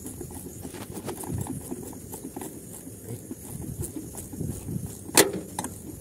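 Wrench turning a rusty compressor mounting bolt: scattered small metal clicks and scraping, with one sharp metallic clack about five seconds in.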